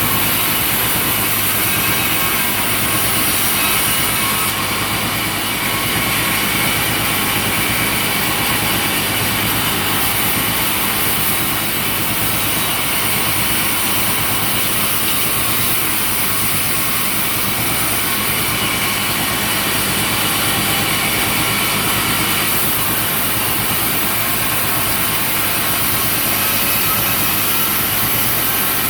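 Sawmill machinery running steadily: a low engine hum with a high, hissing whine over it, shifting slightly a few seconds in and again near the end.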